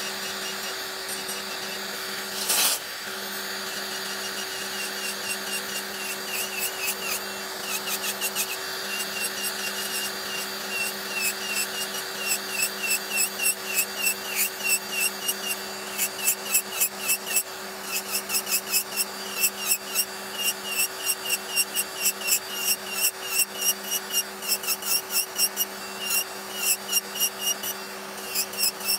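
Pen-style electric nail drill running with a steady hum, its sanding bit filing gel off a nail in short repeated strokes, about two a second, which grow stronger from about six seconds in. A single sharp click about two and a half seconds in.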